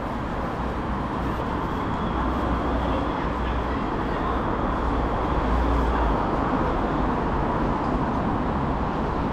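Stockholm metro station noise: a steady rumble that grows heavier for a few seconds in the middle, with a faint high whine over it.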